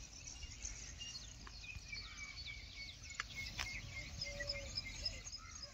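Birds chirping and twittering in many short, high calls over a low steady rumble.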